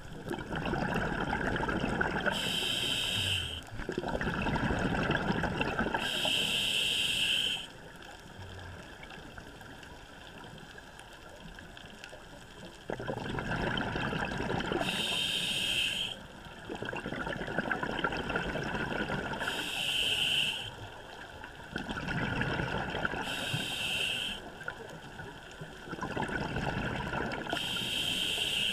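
A scuba diver breathing through a regulator underwater, in about six slow cycles. Each short hissing inhale is followed by a longer bubbling, gurgling exhale. There is a quieter stretch of several seconds about a third of the way through.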